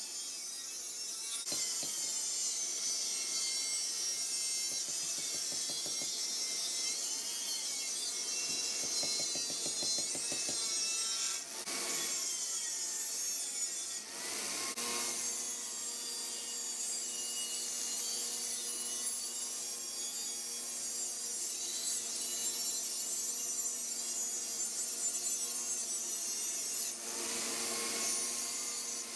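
Angle grinder with a cutoff disc cutting through lawnmower-blade steel. The cut runs steadily, with a few short breaks where the disc comes out of the steel and the motor's pitch shifts.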